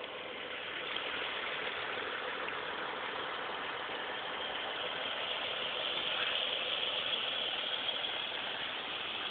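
Semi truck's diesel engine idling: a steady, even hum that grows a little louder in the second half.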